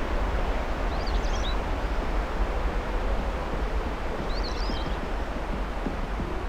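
Steady sea and wind noise with surf, and a bird giving a short high call twice, about a second in and again at about four and a half seconds.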